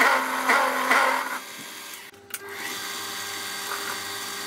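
Small bench lathe taking an interrupted cut on 25 mm steel hex bar, the tool chattering loudly for the first second and a half: a small lathe is not rigid enough for this cut. About two seconds in it breaks off, and the lathe then runs on more quietly with a steady hum.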